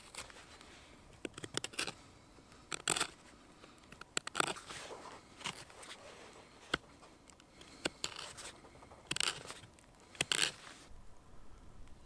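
Knife blade shaving wood from the end of a bark-covered branch, about ten short scraping cuts roughly a second apart, stopping shortly before the end.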